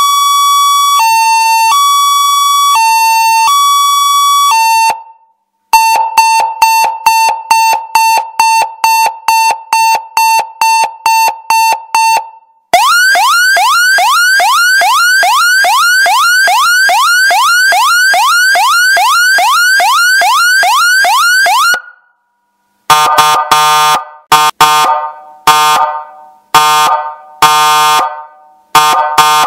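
Electronic siren through a horn loudspeaker, cycling through its tones. First a two-tone high-low alternation changing about once a second. Then, after a short break, fast single-tone beeping about three times a second, then rapid rising whoops about twice a second, and, after another break, short harsh horn-like blasts.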